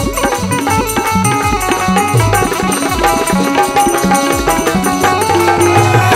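Instrumental Bundeli folk music with no singing: a hand drum plays a quick, steady beat under a melody of held notes.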